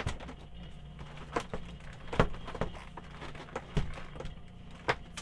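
Van fridge's compressor humming steadily while the fridge is shifted back into its mounting brackets, with about six knocks and clunks spread through. In this bracket position the compressor sits off level and the hum gets worse.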